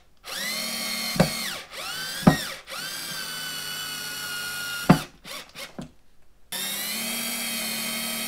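Small cordless drill-driver driving screws through pre-drilled holes in a drawer front to fix it temporarily to the drawer box: the motor whines in several short runs, its pitch sagging as a screw bites. There are sharp clicks between runs, and another steady run starts near the end.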